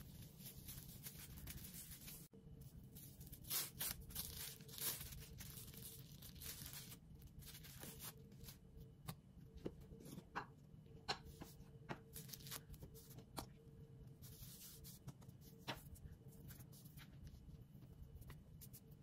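Faint rustling and crinkling of plastic cling film under hands handling a block of laminated pastry dough, with scattered soft taps and clicks later on.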